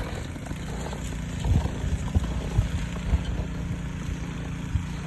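Snow blower's engine running steadily, with a few low thumps over it.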